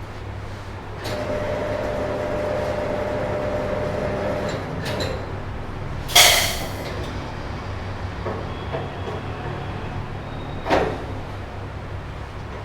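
Tyre-shop machinery: a motor runs with a steady hum for about three and a half seconds, then two short hissing blasts of compressed air, the first a little after six seconds and louder than the second.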